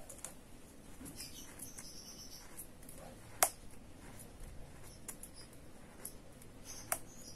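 Faint, squeaky scratching of a marking being drawn on metal engine parts, broken by a sharp click about three and a half seconds in and a smaller one near the end.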